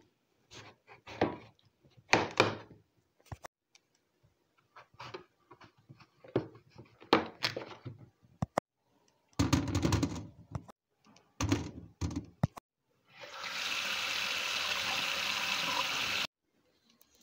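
Knife cutting bottle gourd on a plastic chopping board: a string of irregular cuts, scrapes and knocks, some heavier thuds. Near the end, tap water runs steadily onto the cut pieces in a metal mesh strainer for about three seconds and stops suddenly.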